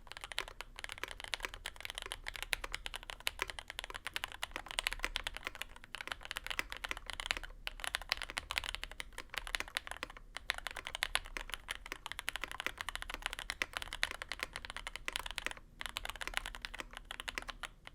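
Fast, continuous typing on a custom aluminium-plate mechanical keyboard with lubed and filmed JWK Lilac linear switches and GMK keycaps, in its plate-foam and tape-mod configuration. There are a few short pauses between bursts of keystrokes.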